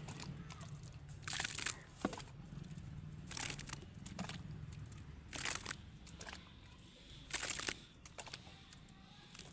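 Dry cattle feed poured from a one-kilogram tin into containers, a short rustling pour about every two seconds, four in all.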